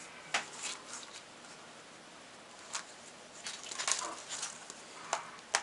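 Scattered light clicks and taps of laptop parts being handled, with a quick cluster of them about three and a half to four and a half seconds in.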